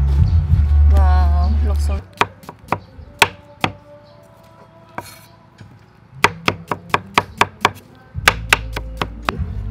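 Kitchen knife chopping green bananas on a wooden cutting board: a handful of sharp chops about two seconds in, a short pause, then a quicker run of chops from about six seconds. Background music plays at the start and again near the end.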